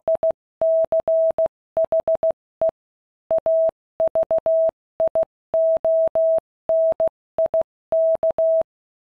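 Morse code: a single clean mid-pitched tone keyed on and off in short and long beeps at a quick, even speed, stopping near the end.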